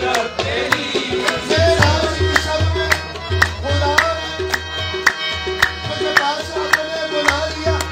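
Tabla playing a steady beat of about two sharp strokes a second, with deep bass thuds coming and going, under a sung melody.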